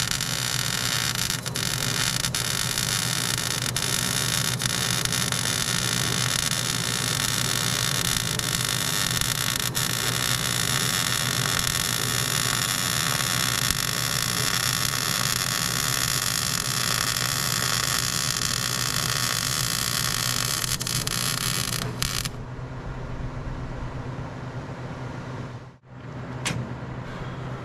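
Electric arc welding on the trailer's steel jack beam, part of a repair of a cracked factory weld: a loud, steady hiss from the arc over a low hum, which stops about 22 seconds in, leaving the quieter hum. A single sharp click near the end.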